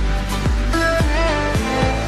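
Background music with a steady beat of about two drum strokes a second, under sustained melodic notes. A tone rising steadily in pitch starts about halfway through.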